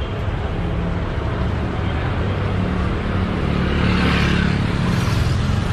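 Street traffic: a steady low engine drone, swelling with tyre and engine noise as a motorcycle passes close about four seconds in.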